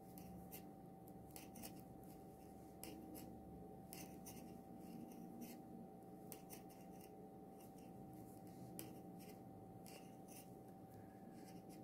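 Knitting needles clicking and scraping faintly and irregularly as knit stitches are worked, over a low steady hum.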